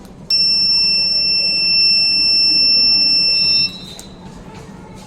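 Buzzer of a homemade laser tripwire alarm sounding one steady, high-pitched tone for about three and a half seconds, then cutting off suddenly. It sounds because the laser beam to the light-dependent resistor has been blocked.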